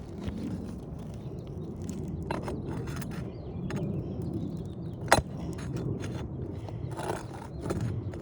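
Asphalt roof shingles being pried up off their staples: scattered scraping and clicking, with one sharp crack about five seconds in. The stapled shingles are breaking as they come out.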